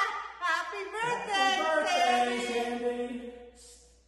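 A man and a woman laughing and calling out, finishing on one long held sung-out note. The sound cuts off suddenly near the end.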